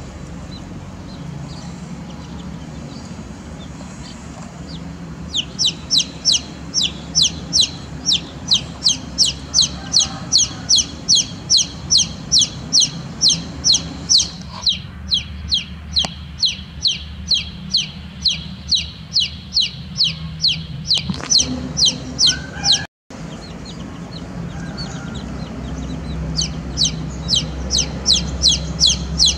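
Young chicks peeping: a rapid, even string of short, high-pitched, falling peeps, about three a second, faint at first and loud from about five seconds in. The sound cuts out for a split second about three-quarters of the way through, over a low steady background hum.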